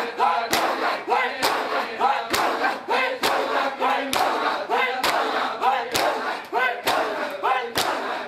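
Group of men performing matam, slapping their bare chests in unison in a steady beat a little faster than once a second, each stroke a sharp slap. Between the strokes the crowd chants and shouts together.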